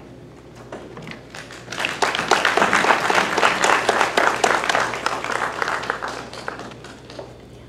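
Audience applauding: the clapping starts about a second and a half in, swells quickly, then dies away near the end.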